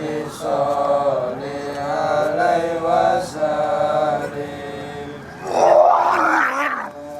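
A voice wailing in long, wavering held notes, breaking into a harsh, rasping cry about five and a half seconds in.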